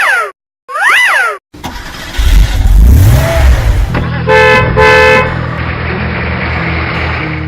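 Cartoon-style sound effects: two quick tones that rise and fall in pitch, then a vehicle engine starting and revving up, two short horn toots about four and a half seconds in, and the engine running on steadily.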